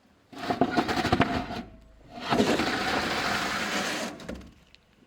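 A small motor running in two bursts, the first about a second and a half long with clicking, the second about two seconds long and steadier.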